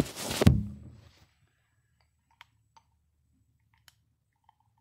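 A phone being handled and set down, with a knock about half a second in. Then a few faint separate clicks as a tight protective cap is worked off a Drake palm skew carving tool.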